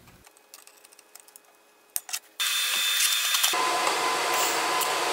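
A few faint clicks, then about two and a half seconds in a TIG welding arc starts on quarter-inch flat stock: a sudden steady hiss with a thin hum, which fills out about a second later and holds steady.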